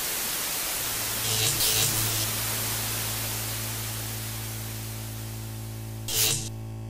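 Television static hiss that starts abruptly, over a low steady hum. There are two brief louder crackling bursts, about a second and a half in and near the end.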